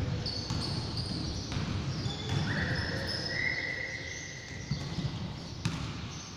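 Basketball game on a hardwood gym court: the ball bouncing on the floor and players' footfalls, with high squeaks, the longest about halfway through.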